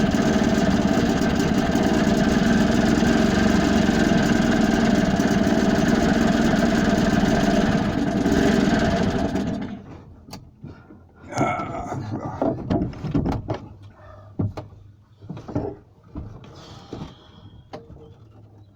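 Boat engine idling steadily, then cutting out about nine and a half seconds in. Scattered knocks and clatters follow.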